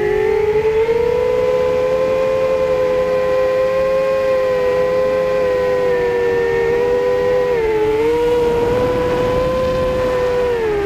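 Quadcopter's electric motors and propellers whining steadily, heard from a camera carried on the drone itself, with several motors sounding at slightly different pitches. The pitch dips about eight seconds in and again near the end.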